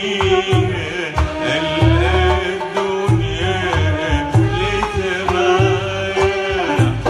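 Live Middle Eastern music: a man sings long, ornamented, wavering phrases, accompanied by plucked oud notes over a regular low beat.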